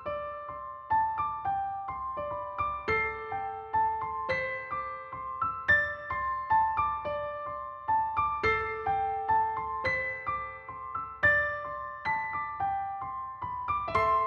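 Background music: a gentle melody of short piano or electric-piano notes.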